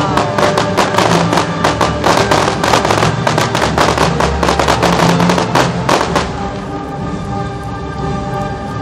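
Fireworks crackling in a dense, rapid run over music. The crackle stops about six seconds in and the music carries on.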